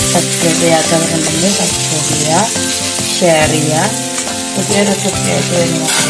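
Beef and onion pieces sizzling as they fry in a pan while a spatula stirs them, under background music with held notes and a sliding melody line.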